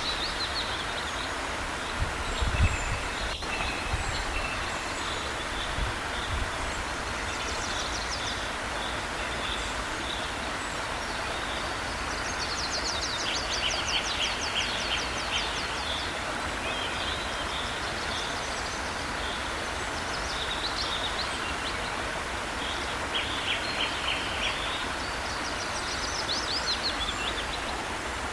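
Steady rushing of a waterfall under repeated songbird chirps, with a fast trill of rapid notes around the middle and more chirping runs near the end. A few low thumps sound near the start.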